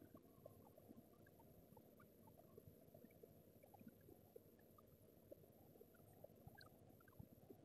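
Near silence: a faint low room hum with scattered tiny ticks and crackles.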